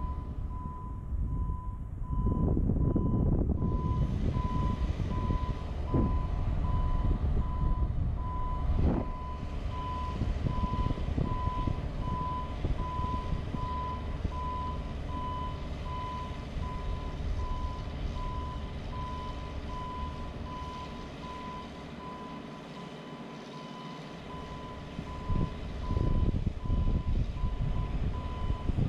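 Motion alarm on a JLG 150HAX boom lift beeping steadily at evenly spaced intervals while the boom is operated, over a low rumble.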